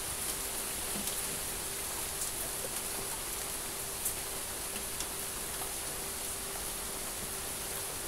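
Steady rain, an even hiss with scattered drop ticks, the sharpest about four seconds in. A faint steady hum runs underneath.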